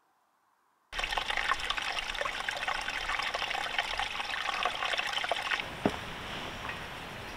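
A small spring trickling over mossy rock: a steady splashing dribble that starts suddenly about a second in. Near the end it gives way to a quieter steady background, with a single sharp knock.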